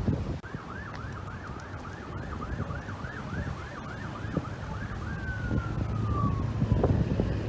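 Emergency vehicle's electronic siren on yelp, quick up-and-down sweeps about two and a half times a second. About five seconds in it changes to a slow wail that falls and starts to rise again near the end. Low engine and road rumble grows louder as the vehicle approaches.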